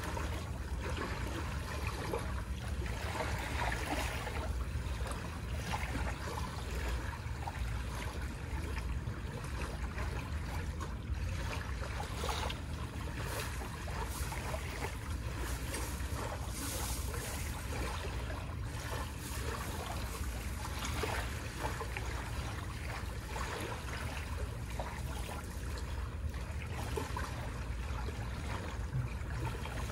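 Small waves washing on a shore, a steady irregular wash over a low rumble.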